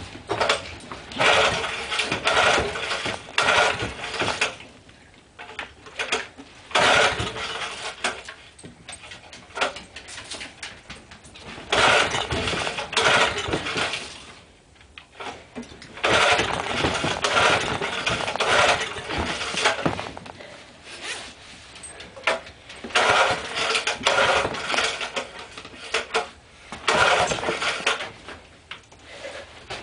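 Small engine of a 2 hp garden tiller being cold-started: it is pulled over again and again and runs in short bursts of one to a few seconds, then dies out each time. The owner says it still doesn't run right after a carburettor rebuild.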